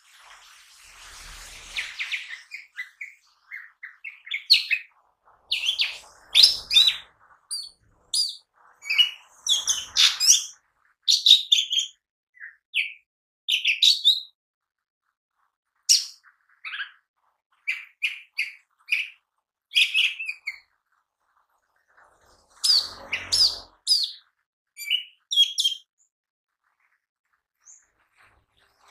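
Lesser green leafbird (cucak ijo mini) singing a lively, varied song of short chirps and quick whistled phrases in bursts, with a pause of a couple of seconds midway and another near the end. A few soft rustling noises come in among the notes.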